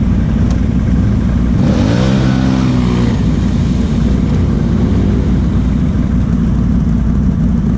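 Can-Am Outlander XMR 1000's V-twin engine with a Big Gun exhaust idling steadily close by. About two seconds in, another ATV's engine revs up, rising in pitch, as it accelerates through a mud hole.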